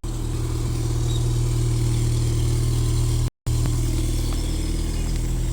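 Engine running steadily with a low, even drone. It cuts out for a split second about three seconds in.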